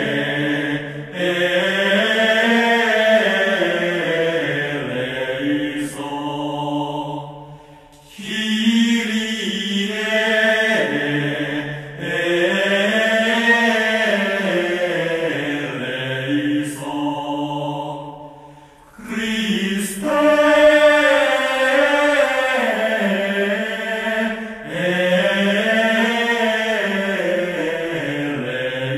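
Chanted singing: long held notes sung in slow phrases that rise and fall in pitch, with brief pauses between phrases.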